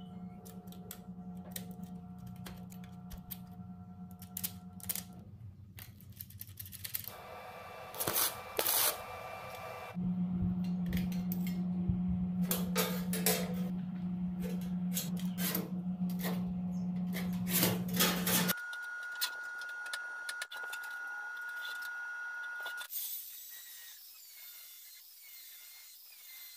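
Intermittent clicks and taps of small metal parts and hand tools being handled, over a steady hum that changes abruptly several times.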